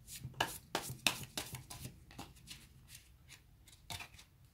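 A deck of oracle cards being shuffled by hand: a quick run of short card slaps and flutters for about the first two seconds, then a few scattered ones, the last a little before the end.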